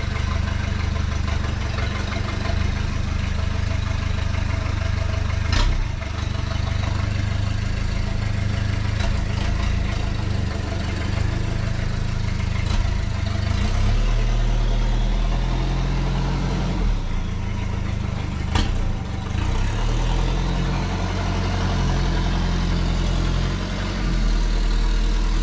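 Lifted Toyota Hilux off-road truck's engine running at low revs as the truck turns and backs up slowly, its note shifting about fourteen seconds in. A couple of sharp clicks stand out, one about six seconds in and another near nineteen seconds.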